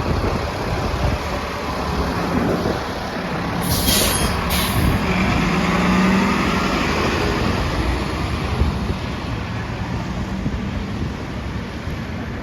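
Diesel transit bus (2019 New Flyer XD40) running, heard from inside, with a steady engine and road drone. About four seconds in there are two short hisses of released air from the bus's air system, and the engine drone swells just after.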